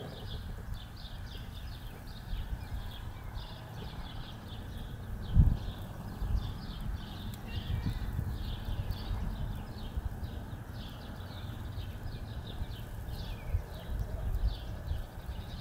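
Steel crucible tongs knocking and scraping against a crucible in a sand-filled bucket furnace, with one sharp knock about five seconds in, over a steady low rumble. A repeating high chirp, about three a second, runs throughout.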